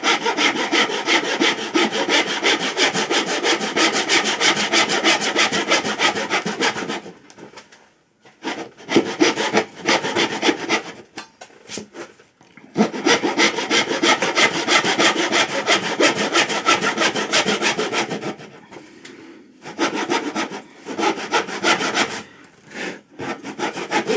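Hand saw cutting relief kerfs across the waste of a dado in a wooden board, in quick back-and-forth strokes. Two long runs of sawing are separated by a pause about seven seconds in, and lighter, broken strokes follow each run.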